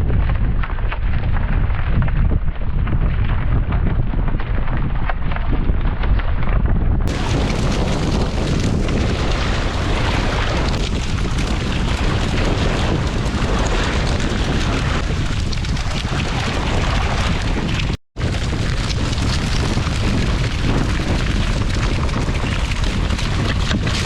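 Strong storm wind buffeting the microphone: a loud, continuous rumble, broken by a brief dropout near 18 s.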